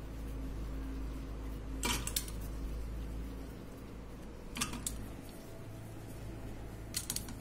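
A stainless-steel bowl and kitchen utensils clink lightly three times, spaced a couple of seconds apart, over a steady low hum.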